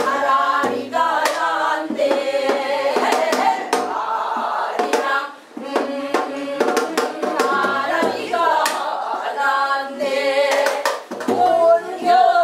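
Several women singing a Korean Namdo folk song together, with hand claps keeping time.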